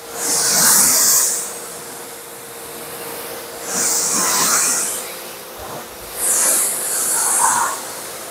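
Pressure washer spraying a car to rinse off soap foam: the jet hisses in three bursts of about a second each, a few seconds apart, over a faint steady hum.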